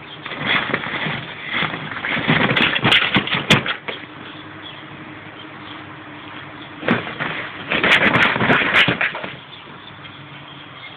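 A small terrier worrying an inflatable plastic pig toy: two bursts of rustling, rubbing plastic and scraping, each a couple of seconds long, with sharp clicks. The first comes in the first four seconds and the second about seven seconds in.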